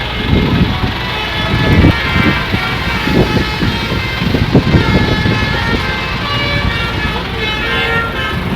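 Buses' engines running at close range, with irregular bursts of low rumble in the first few seconds and horn tones sounding over them.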